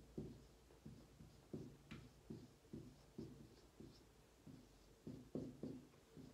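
Dry-erase marker writing letters on a whiteboard: a faint string of short scrapes and taps, about three a second.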